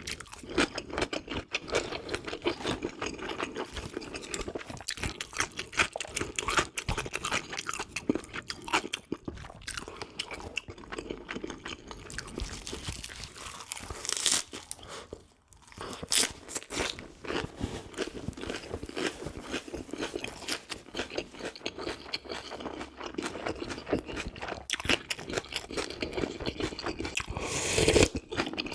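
Close-miked eating sounds: a person chewing and crunching food with many small irregular crunches and mouth noises, pausing briefly about halfway through.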